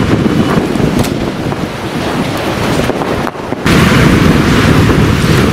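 Storm wind gusting hard and buffeting the microphone in a steady, heavy rumble. It drops away briefly about three and a half seconds in, then comes back louder.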